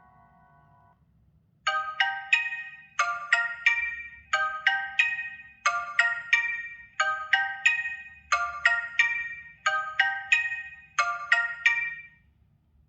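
Xiaomi 12 Pro ringtone: a short phrase of quick, bright struck notes, repeated about every second and a third, eight times over, then stopping just before the end.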